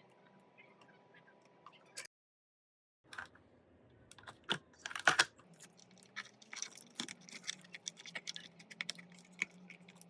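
Quick, irregular light clicks and taps of small hard objects, sparse at first, then a dense run with the loudest cluster about five seconds in, over a faint steady hum. An abrupt edit cut to silence about two seconds in.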